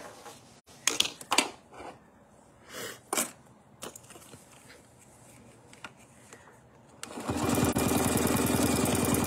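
A domestic sewing machine starts stitching about seven seconds in and runs at a steady, rapid stitch rate for nearly three seconds, doing ruler-work quilting along an acrylic template. Before that there are a few light clicks and knocks as the quilt and ruler are handled.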